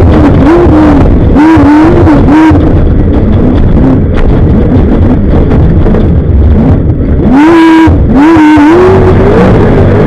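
Off-road race car's engine at high revs under hard throttle, dipping briefly and climbing back several times as the throttle is lifted and reapplied, over a loud, continuous low rumble. The engine pitch rises steadily near the end.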